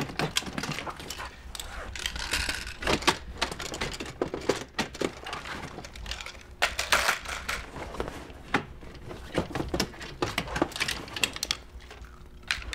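Folding kayak frame rods being knocked off the ribs and handled: irregular clicks, knocks and clatter of frame parts, with brief rustling twice.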